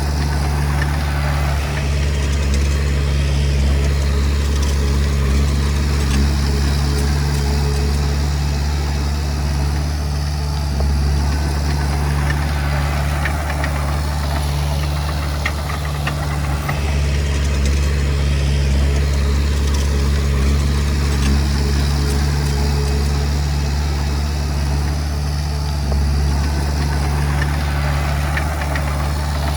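Komatsu D20P bulldozer's diesel engine running steadily at a constant low pitch.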